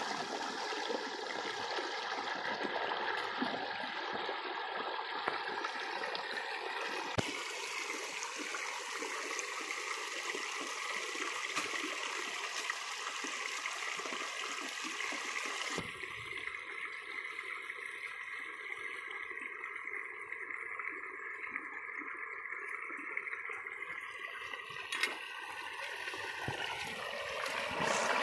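Small stream running, a steady rush and gurgle of water, with a few faint knocks.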